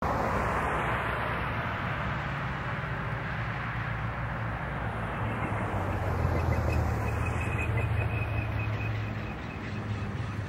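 Road traffic passing along the roadside over a low steady rumble. A faint rapid ringing comes in about halfway and runs until near the end.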